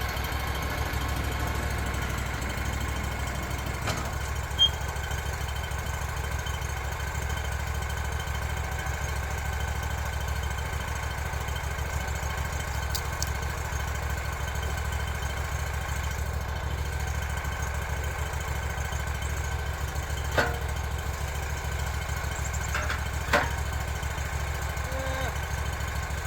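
An engine idling steadily, with three sharp knocks a few seconds in and again near the end.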